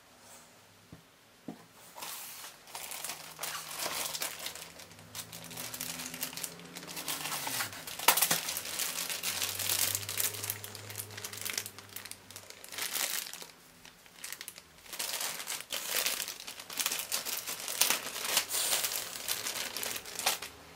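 Clear plastic packaging bags crinkling and rustling as they are handled and opened. The sound comes in irregular bursts, starting about two seconds in, with a few sharper crackles.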